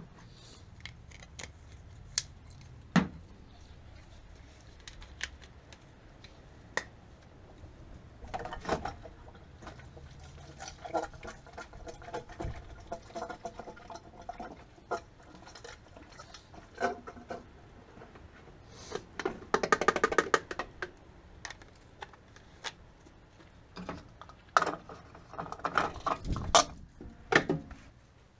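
Scattered clicks and knocks of a bottle being handled at a car's fuel filler neck, with stretches of gurgling as liquid is poured into the tank.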